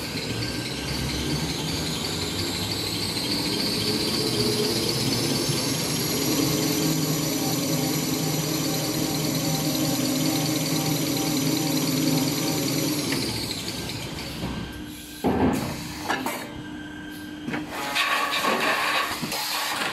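Toilet paper and kitchen towel rewinding machine running, its whine rising in pitch over the first several seconds, holding steady while a paper log winds, then falling quickly about two-thirds of the way through as the machine slows. Loud knocks and clatter from the machine follow near the end.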